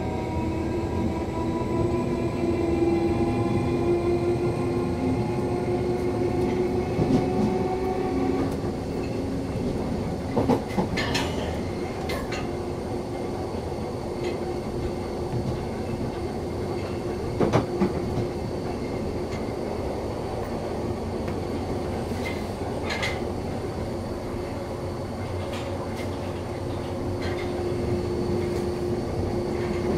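Interior of a 1972 Stock London Underground car running between stations. The traction motor whine rises slightly in pitch over the first several seconds, then holds steady over the rumble of the wheels. The wheels click sharply over rail joints a few times, around the middle and later on.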